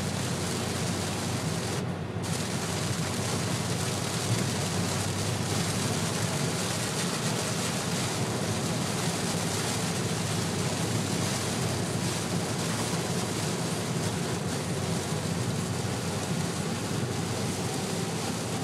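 Heavy rain pelting the car's roof and windshield while driving, heard from inside the cabin, mixed with the tyres hissing on the flooded road: a dense, steady noise.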